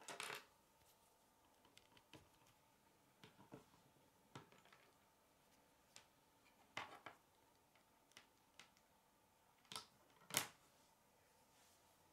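K'nex plastic rods and connectors clicking as they are snapped together and handled: a scattered series of sharp, short clicks, the loudest about ten seconds in.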